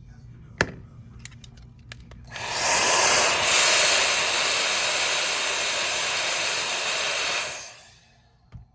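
A sharp click and a few light taps, then a loud, steady hiss of blown air that starts about two seconds in, runs for about five seconds and fades out near the end. It sounds like a hand-held air tool at a phone repair bench.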